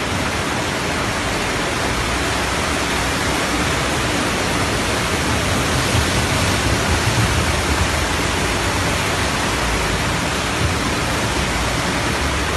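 Steady, loud rush of floodwater across a street, with a jet of water gushing up out of a storm drain; a little louder and deeper about halfway through.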